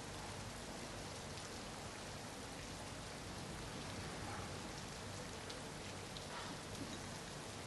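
Steady rain falling, an even hiss with scattered faint drips and patters.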